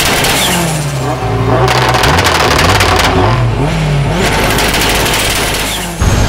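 A car engine revving up and down several times, its pitch rising and falling.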